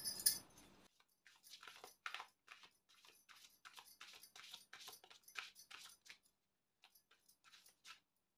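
A deck of oracle cards being shuffled by hand: a run of faint, quick papery clicks as the cards slide over one another, stopping about six seconds in.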